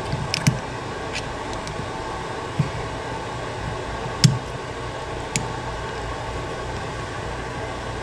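A few sharp metal clicks as a small screwdriver pries a snap ring out of a valve bore in a 200-4R transmission's front oil pump, the loudest about four seconds in. They sit over a steady background hum.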